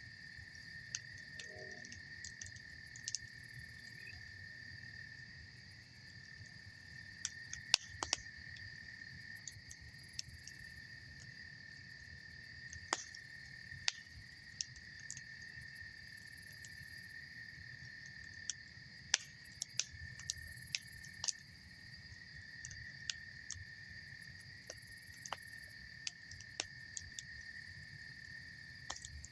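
Campfire wood crackling, with irregular sharp pops scattered throughout and a few louder ones. Underneath runs a steady chorus of crickets trilling.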